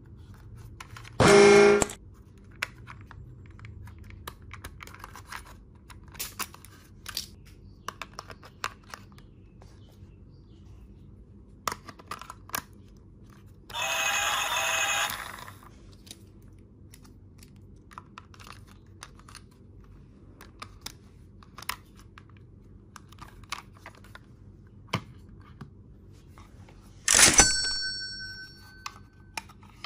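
Plastic clicks and knocks as a battery-powered toy train engine is handled and its battery compartment worked. About a second and a half in, a short loud electronic horn sound from the toy; midway, a hiss lasting about a second and a half; near the end, a sudden clatter with a high ringing tone.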